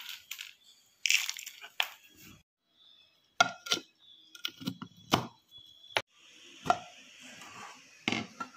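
Irregular sharp clicks and knocks from a steel mixer-grinder jar and its clear plastic lid being handled and fitted.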